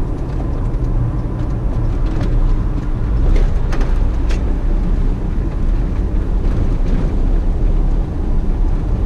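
Hummer H2 driving: a steady low road rumble with tyre and wind noise, and a few light clicks between about two and four seconds in. No grinding stands out, which the driver takes to mean the front-end noise he was chasing is gone.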